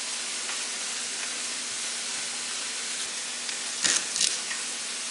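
T-bone steaks frying in olive oil, a steady sizzling hiss. About four seconds in, two quick knife cuts on a plastic cutting board.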